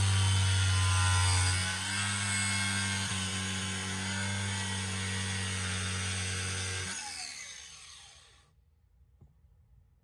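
Angle grinder with a cutting disc running steadily, cutting into the plastic panel around the rear 12 V socket. About seven seconds in it is switched off and the disc winds down in falling pitch to a stop.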